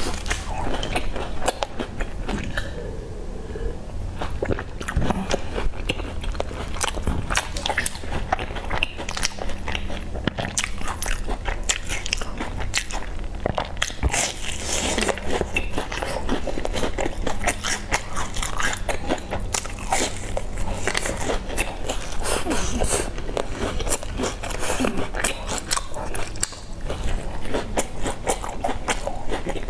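Close-miked biting and chewing of crisp, sesame-rimmed baked pastries: continual crunching and crackling as the pastry is bitten and chewed.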